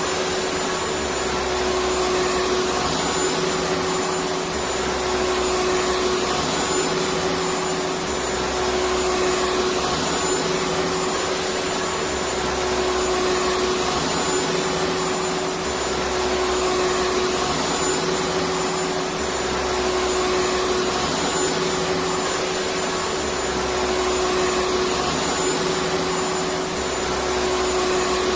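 Vacuum cleaner running steadily with an even whirring hum, its low end rising and falling slightly every four to five seconds.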